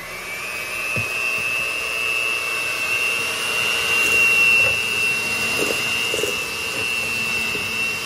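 Electric hand mixer running steadily, its beaters creaming butter, shortening, sugar and egg in a stainless steel bowl, with a high steady motor whine.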